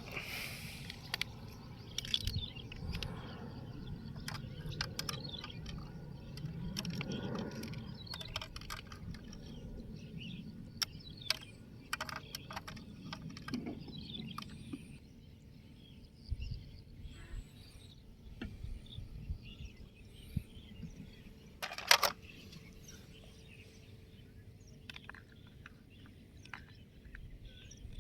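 Faint outdoor background with birds chirping, broken by scattered light clicks and knocks of toy vehicles being handled; one sharper click comes about three-quarters of the way through.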